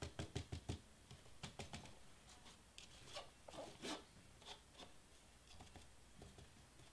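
Faint crinkling and scratching of metallic foil flakes as fingers rub the excess off the edges of a cardstock letter, with a quick run of light ticks in the first second.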